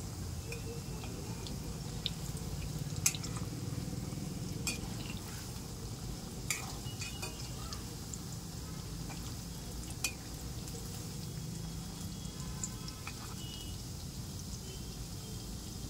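Cauliflower pakoras deep-frying in a kadhai of hot oil, a steady low sizzle. A metal ladle clinks sharply against the pan a few times as the fritters are turned.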